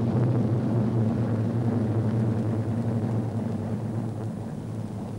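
Piston-engined aircraft flying over in formation, a steady low engine drone that slowly fades as they pass away.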